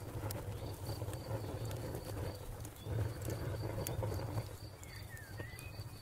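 Wood fire crackling: scattered sharp pops and snaps over a steady low rumble.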